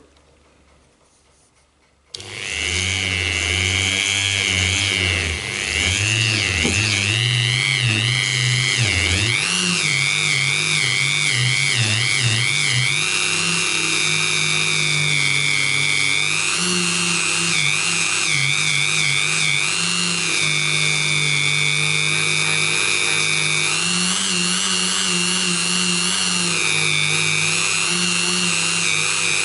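Dremel rotary tool with a polishing tip spinning inside the chamber of a .45 1911 barrel, polishing the chamber. It starts about two seconds in after a moment of quiet, then runs as a steady high whine whose pitch wavers up and down.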